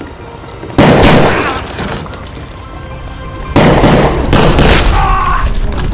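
Two volleys of gunfire in a shootout, the first starting sharply about a second in and the second about halfway through, over background music.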